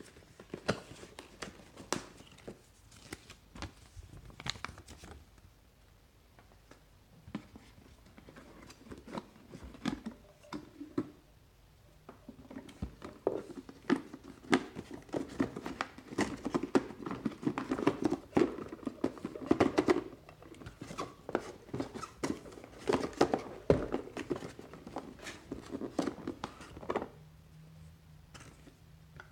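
Handling noise from unpacking a cardboard box: irregular rustles, scrapes and clicks as the box and the plastic device inside are touched and moved. The sounds are sparse at first and grow busier and louder from a little before the middle until near the end.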